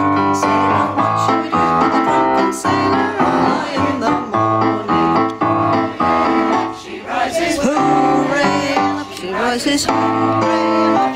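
Mixed choir singing with electric keyboard accompaniment, played through small PA speakers.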